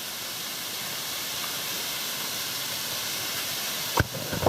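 Water running steadily over a small rock cascade, an even hiss. A single short knock comes about four seconds in.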